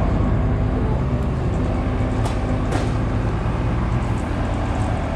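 Large forklift's engine running steadily with a low, even drone, with a couple of light clicks from a wheeled chip conveyor being rolled across concrete.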